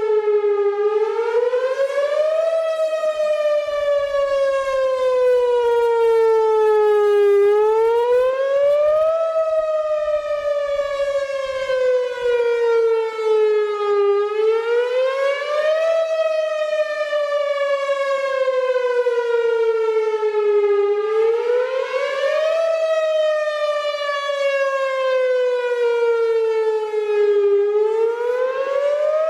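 Whelen Vortex outdoor warning siren sounding during a test, wailing in a repeating cycle: the pitch climbs quickly for under two seconds, then falls slowly for about five, about once every six and a half seconds.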